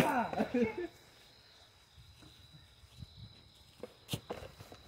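Crickets trilling steadily in the night. A short, loud burst of voice-like whooping fills the first second, and a single sharp crack comes about four seconds in.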